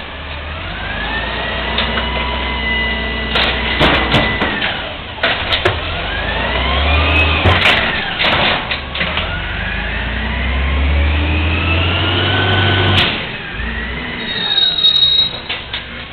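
Amrep automated side-loader garbage truck working: the engine revs up and down under a steady low rumble, with a whine that rises and falls several times and a number of sharp bangs and clatters.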